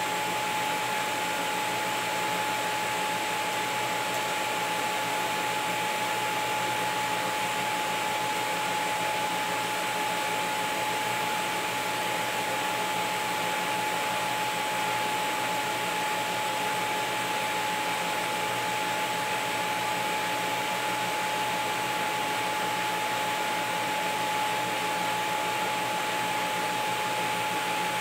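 Stainless steel TIG welding arc running steadily at a set current without pulsing: an even hiss with one constant high-pitched tone through it.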